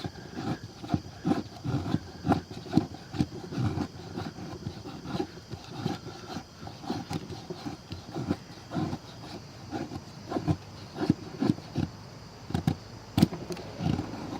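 Knife blade of a budget multitool cutting into wood in repeated strokes, about two a second, with a sharp click near the end.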